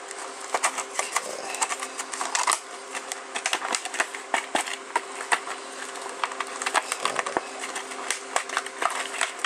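Stiff plastic blister packaging being pried and pulled apart by hand: a long run of irregular crackles, crinkles and sharp snaps.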